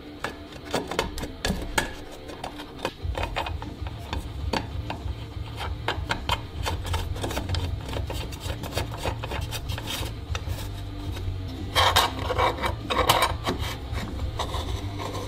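Irregular scraping and clicking of a hand threading a nut onto a fitting in the mounting hole of a plastic traffic-signal housing, the housing shifting and rubbing against the bench. There is a busier run of scrapes about twelve seconds in.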